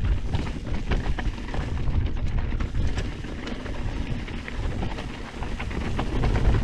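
Trek Fuel EX 8 mountain bike riding down a dirt trail: wind buffeting the microphone in a constant low rumble, with quick rattles and crunches from the tyres and frame.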